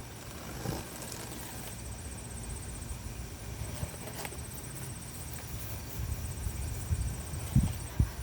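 A cardboard shipping box being handled and cut open with a folding knife: irregular knocks, scrapes and thumps of the box, with a couple of sharper knocks near the end.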